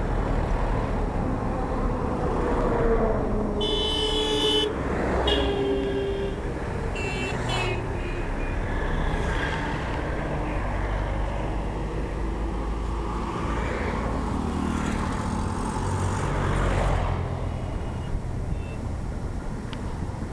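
Road traffic: vehicle engines running and passing, with horns tooting in a cluster of short blasts between about four and eight seconds in.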